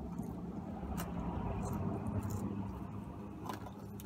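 Traffic passing outside, heard from inside a parked car: a low rumble that swells in the middle and fades. A few light clicks come from a plastic fork in a foam takeout box.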